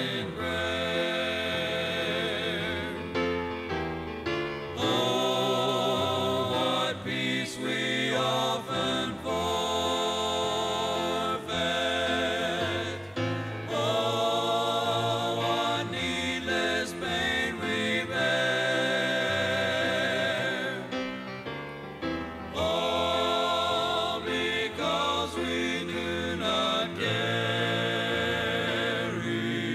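Gospel vocal quartet singing a hymn in close harmony, in phrases of a few seconds each with short breaks, played from an old cassette tape recording with a dull top end.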